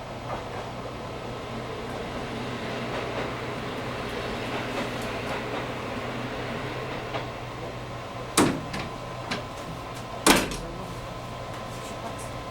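Diesel limited-express railcar running, heard from behind the driver's cab: a steady hum with a couple of faint tones. Two sharp knocks come about two seconds apart near the end, with a few lighter ticks.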